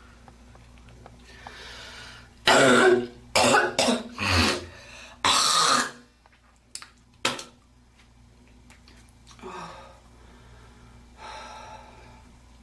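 A girl coughing and hawking, clearing phlegm from her throat in a run of loud, harsh bursts starting about two and a half seconds in and lasting some three seconds. Two short sharp clicks and softer breathy sounds follow.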